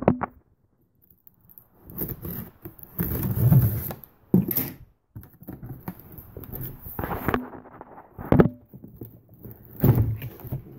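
Cardboard shipping box being handled and opened: irregular scrapes and rustles of the flaps with a few knocks, starting about two seconds in.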